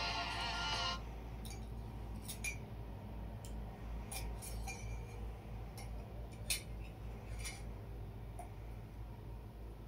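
Metal spoon clinking against ceramic mugs, about a dozen separate light clinks at an irregular pace as a small child stirs and taps in play-cooking. Background music cuts off about a second in.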